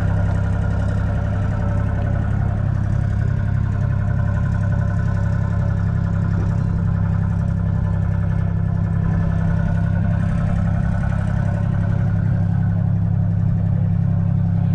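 1966 Ford Dexta 2000's 2.6-litre three-cylinder diesel engine idling steadily.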